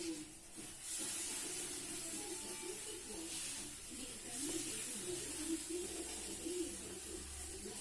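4B graphite pencil scratching across drawing paper in repeated hissing strokes, drawing fur.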